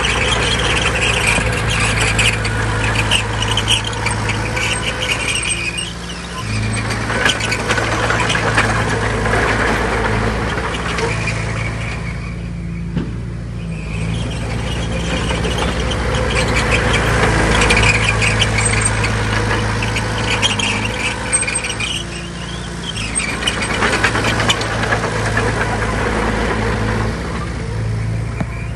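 Heavy diesel earthmoving machine working: the engine runs under load that rises and falls, easing off briefly three times, with high metallic squealing and clanking over it.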